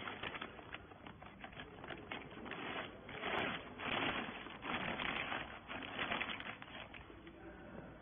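Clear plastic bag crinkling and rustling as it is handled around a compressed bale of rags, in irregular rustles and small crackles that are loudest in the middle.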